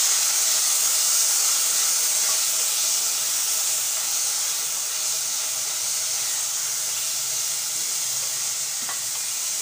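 Washed, soaked seeraga samba rice sizzling in hot ghee in a steel pot as it is stirred: a steady hiss that eases off slightly as the wet grains fry.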